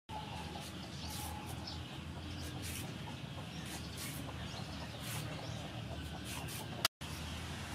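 A hand-held vegetable peeler scraping down a raw carrot in quick repeated strokes, each a short rasp. Chickens cluck in the background.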